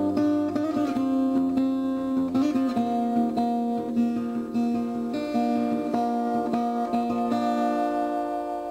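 Acoustic guitar music: plucked notes playing a melody.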